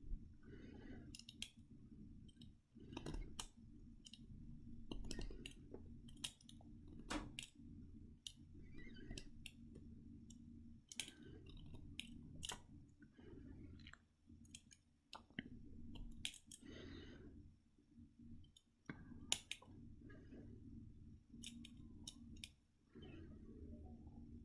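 Dry brown skin being scraped and picked off a dried avocado stone: faint, irregular scratches and clicks.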